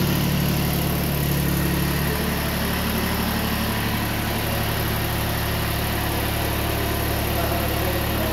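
Iseki TX1410 compact tractor's diesel engine running steadily at low revs, its pitch dipping slightly about two seconds in.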